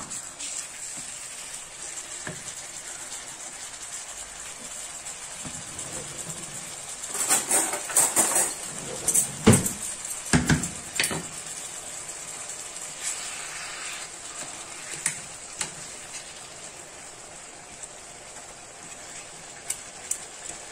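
Sliced chicken breast sizzling with onion and paprika in a non-stick frying pan, a steady hiss of frying. In the middle, a wooden spoon scrapes and knocks against the pan in a cluster of strokes as the meat is stirred. Near the end come a few light clinks as a fork and spoon turn the pieces.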